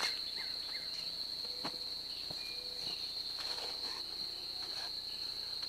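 Insects trilling outdoors in one steady, unbroken high-pitched tone, with a few faint soft clicks underneath.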